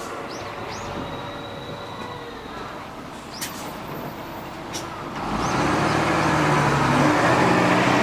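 City bus driving past close by. It grows louder from about five seconds in as its engine revs up, the pitch stepping upward as it accelerates.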